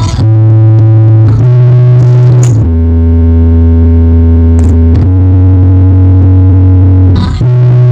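Bass-heavy electronic music played at full volume through a big sound-system rig of 24 subwoofers and 16 line-array cabinets: long held synth bass notes that shift pitch every second or two.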